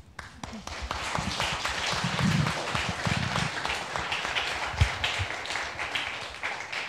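Wedding guests applauding: many hands clapping, swelling quickly and thinning out near the end.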